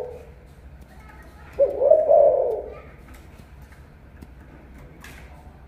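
Caged spotted dove cooing: one full coo phrase about one and a half seconds in, lasting about a second, after the tail end of an earlier call at the very start.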